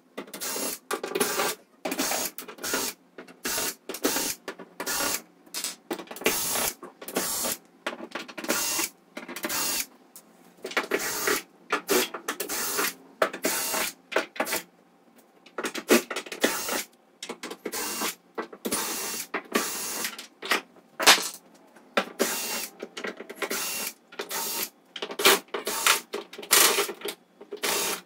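Cordless drill/driver running in many short bursts, stopping and starting every second or so, as it backs screws out of a TV's back cover one after another.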